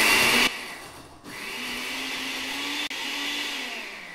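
Countertop jug blender puréeing soaked, pitted dates with water into a thick syrup. It opens with a short loud burst, then runs again more steadily with a motor hum and winds down near the end.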